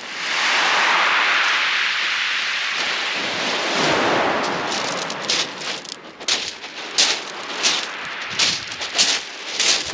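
A small wave washing up a pebble shingle beach with a steady hiss, then from about halfway a run of sharp, irregular clicks and crunches of shingle stones.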